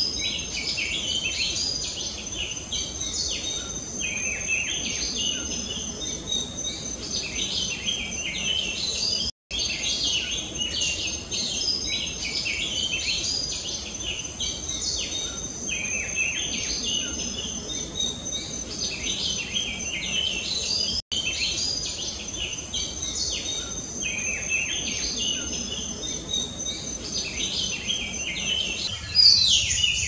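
Oriental magpie-robin singing a long run of varied, whistled phrases, with a steady high insect trill behind it.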